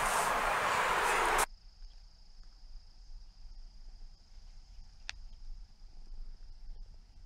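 A loud rushing noise cuts off suddenly about a second and a half in. After it comes a faint, steady, high-pitched chirring of insects, with a single soft click about five seconds in.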